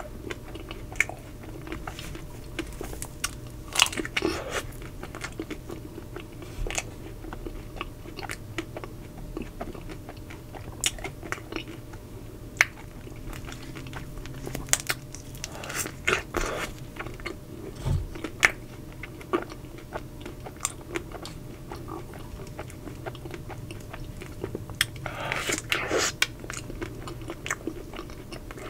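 Close-miked biting and chewing of a chocolate-coated Magnum ice cream bar, its chocolate shell crackling and crunching in many small sharp snaps, with three louder bursts of crunching spread through.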